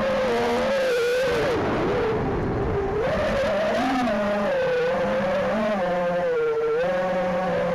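Brushless motors and propellers of a 5-inch FPV quadcopter whining in flight, the pitch rising and falling as the throttle changes.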